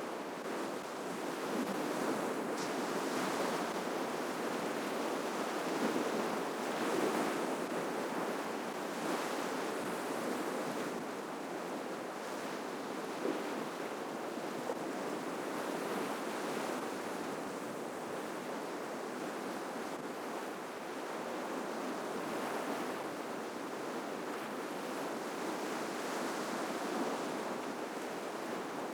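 Ocean waves breaking and washing up a shoreline: a steady rush of surf that swells and eases every few seconds.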